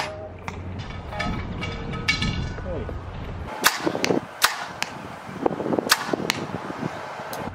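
Hoyt Helix compound bow shooting arrows at a bag target: a sharp crack of a shot at the start, then a string of sharp cracks of shots and arrow hits from about three and a half seconds in. Wind rumbles on the microphone for the first few seconds.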